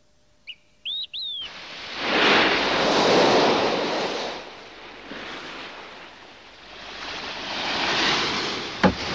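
Sea waves washing onto a sandy shore, swelling and fading twice, after a few short bird chirps at the start.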